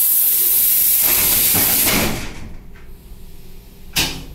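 Pneumatic sliding doors of an ET2M electric train closing: a loud hiss of air for about two seconds, then a single bang about four seconds in as the doors shut.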